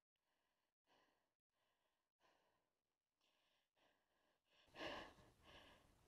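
A rider breathing hard, out of breath from the exertion: a series of faint, quick breaths with no voice, then a louder rush of noise near the end.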